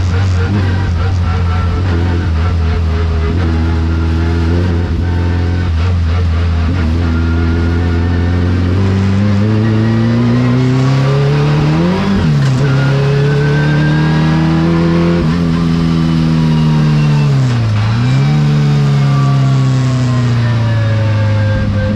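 Race car engine heard from inside the cockpit under load, holding steady revs at first, then climbing. The revs drop sharply about halfway through, and dip and pick up again a few seconds before the end.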